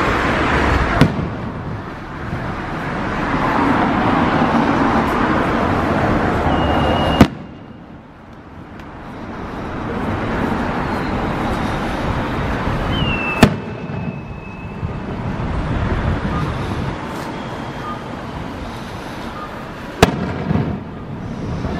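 Fireworks going off overhead: four sharp bangs several seconds apart, the loudest about seven seconds in, over a steady hum of street traffic.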